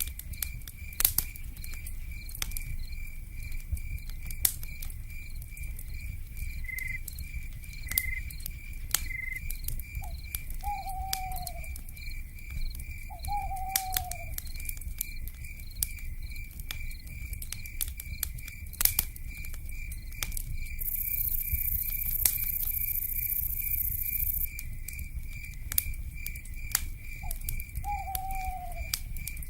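Night forest ambience: a wood fire crackling with scattered sharp pops over a low rumble, under a steady pulsing insect chirp. Short owl calls sliding down in pitch come twice near the middle and once near the end, and a few seconds of high hiss come in past the middle.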